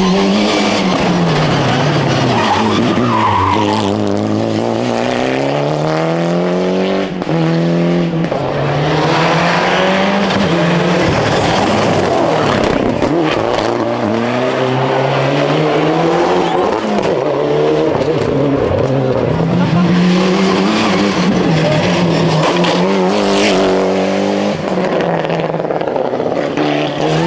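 Turbocharged four-cylinder Group A rally cars passing one after another through tarmac corners, engines revving hard and falling off again with each gear change and lift, and tyres squealing as the cars slide.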